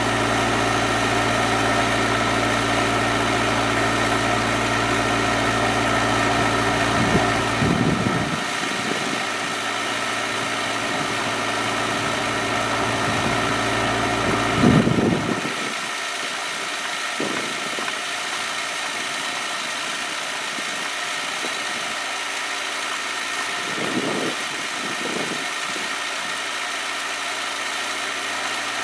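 Kubota B7800 compact tractor's diesel engine running steadily while driving a three-point-hitch post hole auger. About halfway through, a loud clunk comes and the deep low drone drops away; a few more knocks follow.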